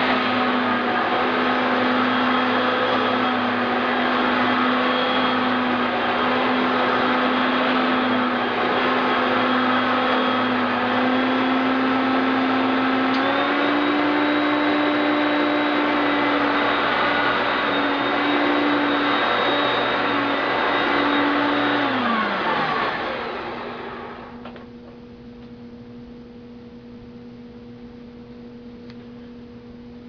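Hoover Concept One upright vacuum cleaner running steadily, its motor pitch stepping up slightly about halfway through. About three-quarters of the way in it is switched off and the motor winds down with a falling tone, leaving a faint steady hum.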